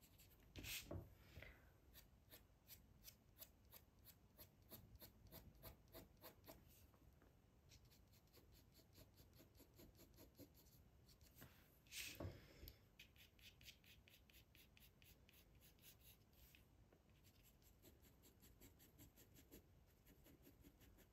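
Faint graphite pencil hatching on drawing paper: a quick run of short, even scratching strokes, several a second, laying in shading lines. Two louder strokes stand out, about a second in and again about twelve seconds in.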